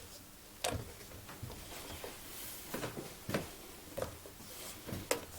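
Faint handling sounds of a rabbit being held for an intramuscular injection: about six short, irregular rustles and clicks.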